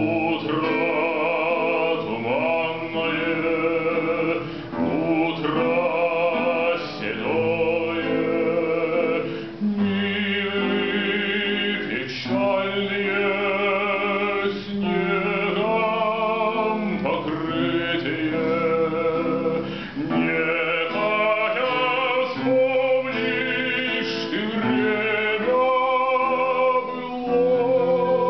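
Baritone singing a Russian romance in a classical, operatic style with a wavering vibrato, accompanied by a plucked classical guitar.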